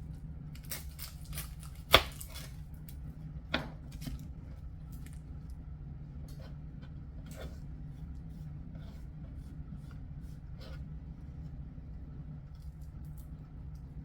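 Knife chopping red onions on a cutting board: a few sharp knocks, the loudest about two seconds in, then lighter, quicker taps that thin out toward the end, over a steady low hum.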